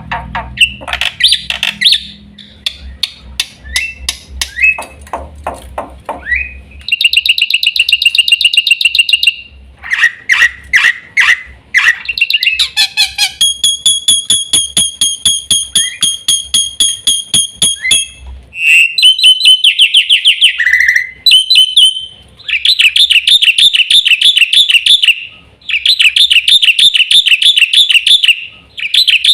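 Black-winged myna (jalak putih) singing loudly: a varied song of rapid rattling trills, runs of repeated whistled notes and fast buzzy chattering, in phrases broken by short pauses.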